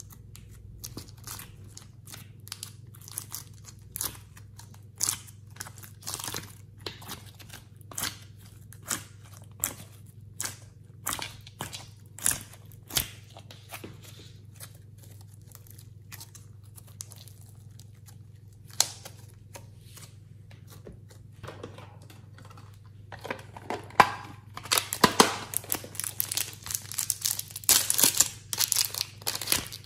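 Slime cubes being pressed out of a plastic mould tray and squeezed, giving sharp clicks and sticky crackles about once a second, then a quiet stretch. Near the end, a clear plastic wrapper crinkles and tears as it is peeled off a block of soft clay.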